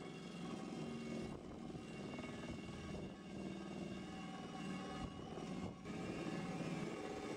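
Electric drill spinning a grinding wheel against the face of a cast iron griddle, grinding down the rough cast surface: a steady motor whine over a rough scraping, with brief dips about a second and a half in and again near six seconds.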